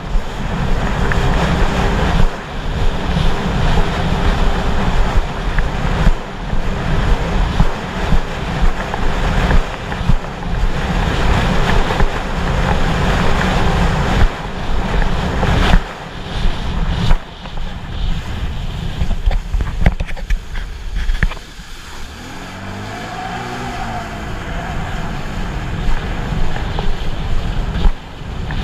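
Sea-Doo personal watercraft running across open sea, with heavy wind buffeting the microphone and water rushing under the hull. About two-thirds of the way through the wind noise eases and a wavering engine note comes through.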